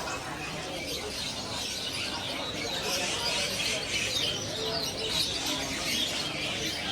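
Many caged songbirds chirping and twittering at once, a dense chorus of overlapping short calls that grows fuller about three seconds in.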